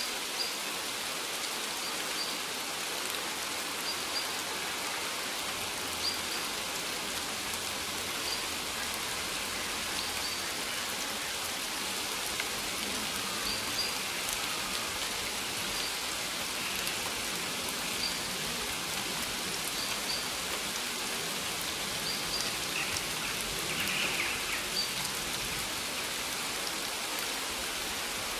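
Steady rain falling on a maize field, an even dense hiss of drops with a few louder drop hits. A faint short high chirp recurs about every two seconds.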